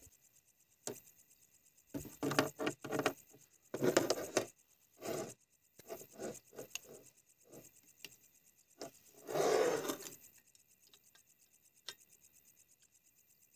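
Camp gear being handled on a folding table: a string of knocks, rubs and clicks as a remote-canister gas stove and a plastic cutting board are set down and a gas canister is fitted to the stove's hose. The loudest is a longer scrape about two-thirds through.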